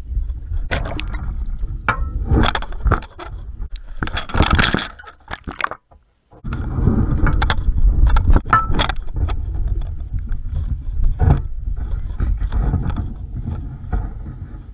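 Low rumble on a body-worn camera's microphone, with scrapes and knocks of hands working a lift net and its mesh at the water's edge; the sound drops out briefly about six seconds in.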